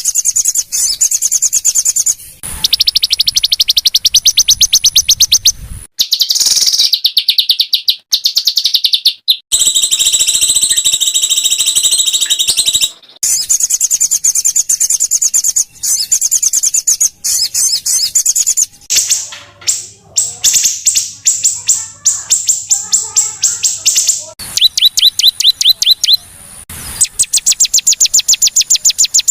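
Small songbirds giving rapid, harsh machine-gun trills of fast repeated high notes, spliced together from several recordings so the trill type changes abruptly every few seconds. This is a masteran, a compilation used to train captive songbirds such as murai batu and cendet to copy the 'tembakan kasar' (rough shot) trill.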